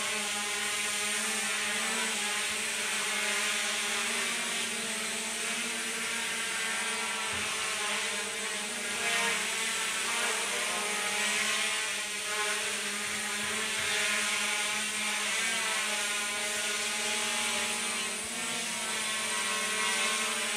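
Small quadcopter drone with brushless motors, a KS66 Inspire-style clone, in flight: its propellers make a steady buzzing whine of several close tones that waver slightly in pitch.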